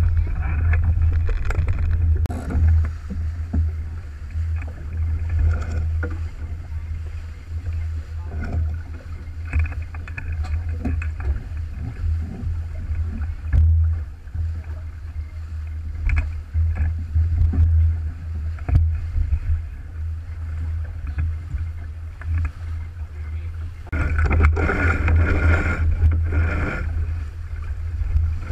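Water rushing and splashing along the hull of an Alberg 30 sailboat under sail, with wind buffeting the microphone as a steady low rumble. The rush grows louder for a few seconds near the end.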